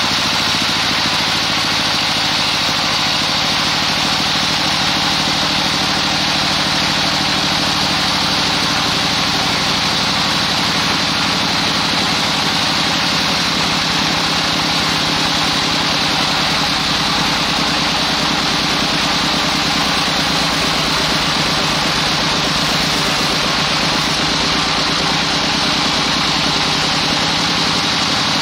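Band sawmill running steadily, its blade sawing through a large damar (Agathis) log, with a continuous hum and a high hiss.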